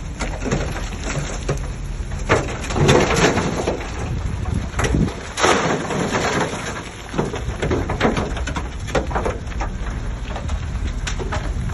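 Shantui DH17C3 bulldozer at work: a steady low engine rumble under repeated bursts of crackling, scraping noise, from soil and stones being pushed and crumbling ahead of the blade.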